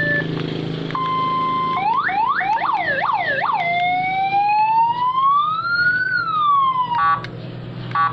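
Six-tone electronic siren cycling through its tones. It starts about a second in with a steady tone, then a fast up-and-down yelp, then a slow wail that rises and falls, and ends with short choppy blips.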